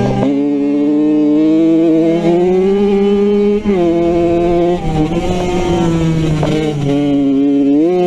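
Small off-road motorcycle engine running under throttle, heard on board. Its pitch climbs steadily, drops sharply about three and a half seconds in as the throttle is eased or a gear is changed, runs rougher and lower for a couple of seconds, then climbs again near the end. A second bike's engine runs close ahead.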